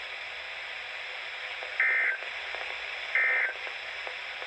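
Weather radio broadcast hiss, broken by two short, loud bursts of EAS SAME header data about 1.4 s apart, with a third starting at the very end. These buzzy digital data bursts encode a new emergency alert before its voice message.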